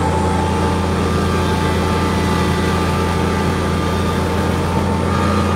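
Kubota compact tractor's diesel engine running steadily with its PTO-driven front snowblower engaged, a constant low drone heard from inside the closed cab.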